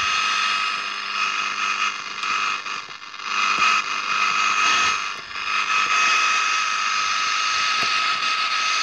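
FM radio kit's loudspeaker putting out a steady hiss with a steady high tone in it: the receiver's noise with no station tuned in. It falls away briefly twice, about three and five seconds in, while the antenna wire is handled.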